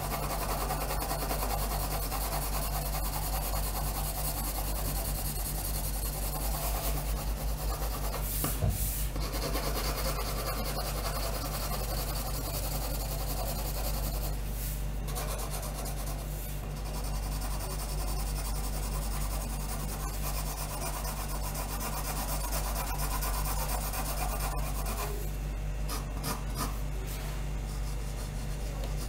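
Pencil lead scratching on paper in continuous back-and-forth hatching strokes as a drawing is shaded, over a steady low hum.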